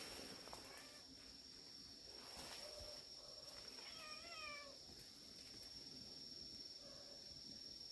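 A cat meows faintly a few times, the clearest a single wavering meow about four seconds in. A steady high whine runs underneath.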